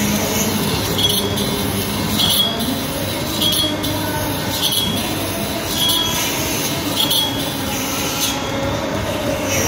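Bench saw cutting slate into thin sticks: a steady machine drone, with a high screech each time a piece is pushed through the blade, about once a second.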